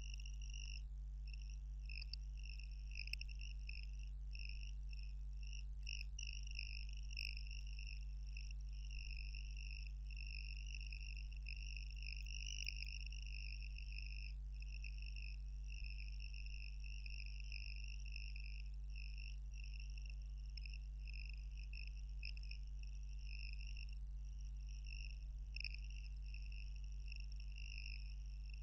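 Faint, steady high-pitched chirring of insects such as crickets, over a low steady hum.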